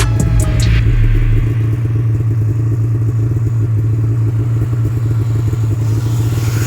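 Snowmobile engine running steadily at constant speed, a low even drone. Music fades out in the first second or so.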